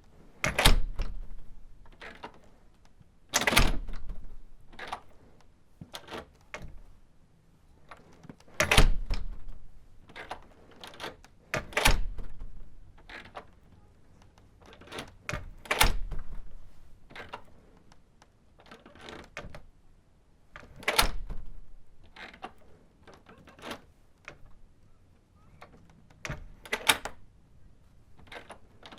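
A classroom door being worked over and over: a run of sharp knocks and clicks, with a heavier thud every three to five seconds as the door shuts, and smaller clicks and rattles in between.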